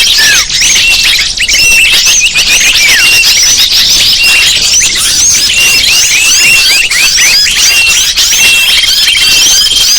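Loud, dense chorus of many small birds chirping and twittering over one another without a break, as in a bird-lure recording. A thin, steady high note comes in about halfway through and again near the end.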